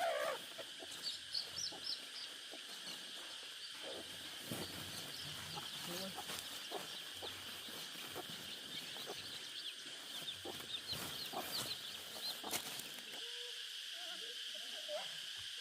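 Backyard chickens clucking and peeping in short scattered calls, with a few sharp taps, over a steady high-pitched hum.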